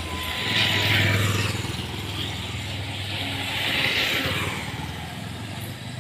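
Motor vehicles passing on a road, two in turn: engine hum and tyre noise swell and fade about a second in and again about four seconds in.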